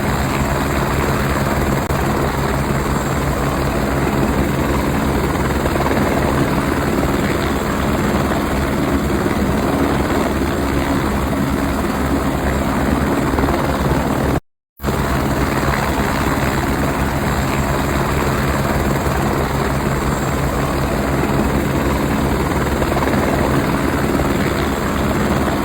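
Helicopter running steadily, a continuous loud rotor and engine noise with a steady low hum. The sound cuts out for a split second about halfway through, then carries on as before.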